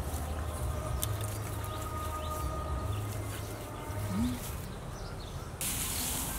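Outdoor ambience with short bird calls over a steady low rumble; about two-thirds of the way through it gives way abruptly to a brighter hiss.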